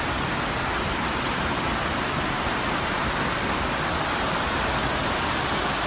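Steady rush of running water in a cave, an even hiss with no breaks.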